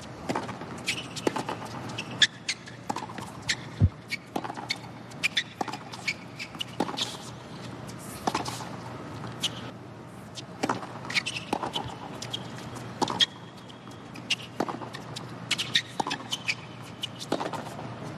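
Tennis rally on a hard court: sharp racket strikes and ball bounces going back and forth at an uneven pace, over a low steady stadium background.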